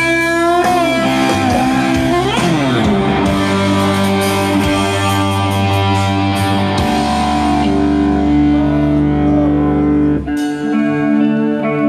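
Electric guitar music with a strong bass underneath, sustained notes with a falling pitch bend about two seconds in; the bass drops out near the end, leaving a lighter guitar texture.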